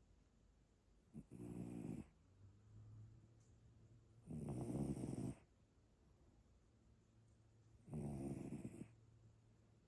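Domestic cat snoring: three snores about three and a half seconds apart, each lasting about a second, with a softer breath between the first two.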